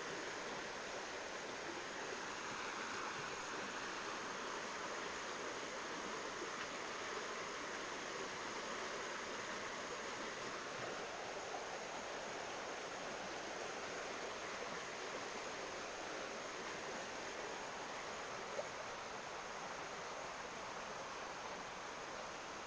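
Shallow stream rushing steadily over rocks in a riffle, a constant even wash of water noise, with one brief faint tap about three-quarters of the way through.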